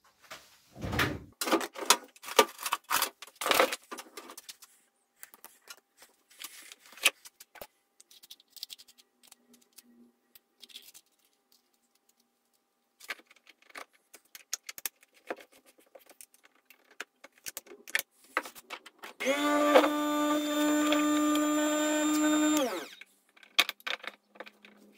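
Tools and metal parts clatter on a workbench for the first few seconds, followed by scattered light clicks of handling. Near the end an electric drill-bit sharpener's motor runs steadily for about three and a half seconds, then switches off and winds down.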